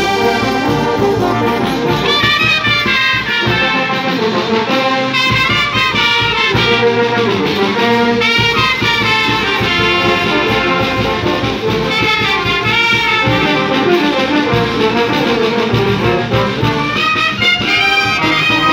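Brass band of trumpets, trombones and sousaphones playing a continuous tune outdoors, with drums keeping a steady beat.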